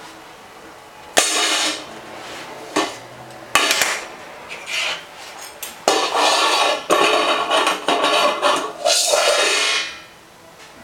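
Kitchen pots being banged and clattered by a toddler. There are a few separate clangs, then a dense run of clattering from about six seconds in that stops near the end.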